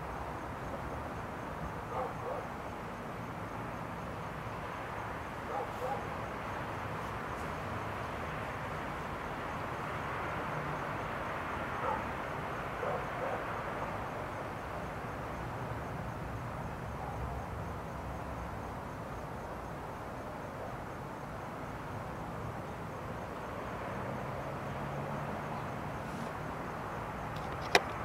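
Steady outdoor night background noise with a few faint, short animal calls, like distant barks. A single sharp click near the end as the tripod-mounted camcorder is moved.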